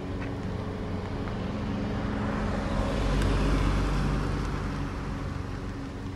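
A car engine running at low revs, with a swell of engine and road noise that rises to a peak about halfway through and then fades, as a car moves close past.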